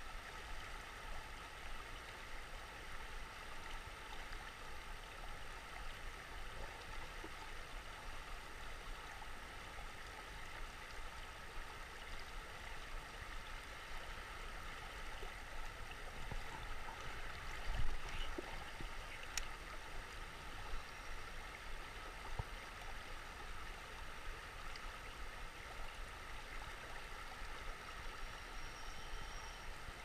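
River water flowing steadily around the wading angler, a constant rush of current over a shallow riffle. A single brief knock about 18 seconds in.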